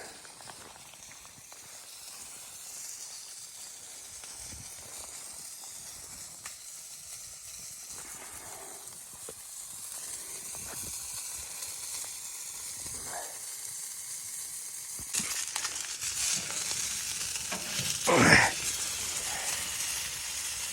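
Food sizzling in a pan on a wood stove, a steady hiss that grows louder about three-quarters of the way through, with a brief louder sound near the end.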